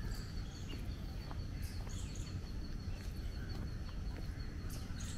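Park ambience: scattered short bird chirps over a steady low rumble, with a faint steady high-pitched tone.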